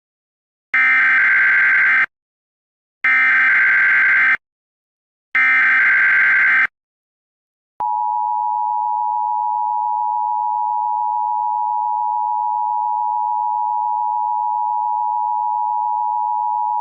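Emergency Alert System header: three short bursts of harsh, screechy data tones, about a second apart. About eight seconds in, the steady, continuous attention-signal tone begins, announcing that an alert message is about to follow.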